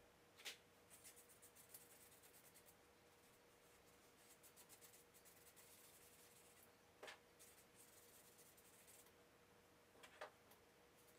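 Faint scratching and rubbing of charcoal and fingertips on sketchbook paper in short runs of strokes, with a few soft clicks, over a faint steady hum.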